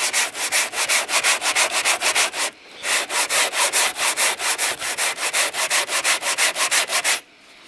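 Hand sanding block with coarse 80-grit Mirka Iridium abrasive rasping back and forth over cured body filler on a steel car door, in quick even strokes of about four or five a second. It breaks off briefly about two and a half seconds in, then stops shortly before the end.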